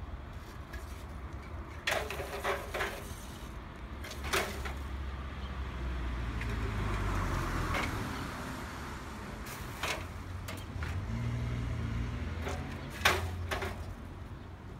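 Parked bicycles being moved by hand: scattered sharp clanks and clicks from frames and kickstands. Under them runs a steady low traffic rumble that swells as a vehicle passes in the middle.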